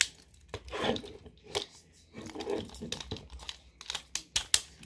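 Hard plastic Beyblade launcher and carabiner grip being handled and fitted together: a run of short, sharp plastic clicks and rattles with some rubbing between them.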